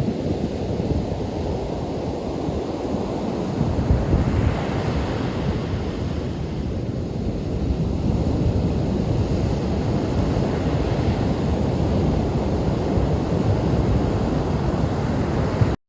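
Steady outdoor rush of wind and surf, with wind buffeting the microphone as a low rumble, growing louder a few seconds in and cutting off abruptly near the end.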